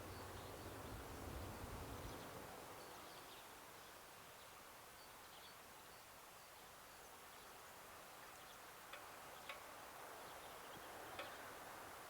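Near silence of an outdoor ambience: faint bird chirps now and then, a few sharper ones near the end, after a low rumble that fades out about two seconds in.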